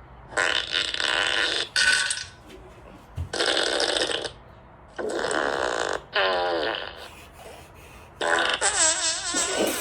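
Fart sound effects played back from a phone: about six separate blasts of half a second to a second and a half each, with short pauses between. Some have a wobbling, warbling pitch.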